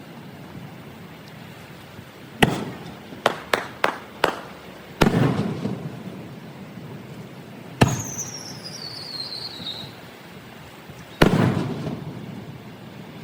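Fireworks display: aerial shells bursting with sharp bangs and rumbling echoes. A quick run of four cracks follows the first bang. After a bang near the middle, a whistle falls in pitch for about two seconds.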